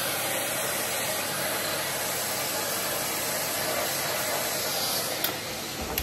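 Henry cylinder vacuum cleaner running steadily, a continuous hiss of the motor and suction airflow. A single sharp click about five seconds in.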